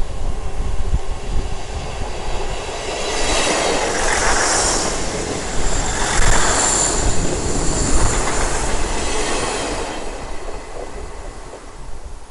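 South West Trains diesel multiple unit running past close by, its engine and wheel-on-rail noise building, peaking and fading, with a thin high squeal about six seconds in.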